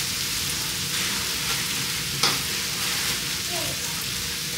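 Bacon sizzling steadily on a hot electric griddle, with one sharp click a little over two seconds in.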